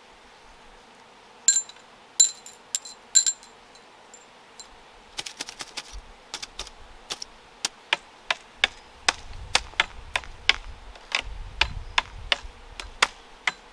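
Hard objects clicking and tapping. Four sharp clicks with a short metallic ring come in quick succession about a second and a half in, then from about five seconds an even run of short clicks, two or three a second, with some low thuds of handling in the middle.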